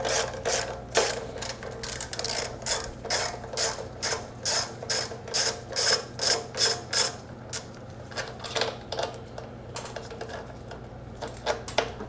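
Hand ratchet wrench clicking in quick repeated strokes, about three a second, while backing out the 10 mm fasteners that hold the carburetor on a Honda GCV160 engine. The steady clicking stops about seven and a half seconds in, leaving a few scattered clicks and small tool handling sounds.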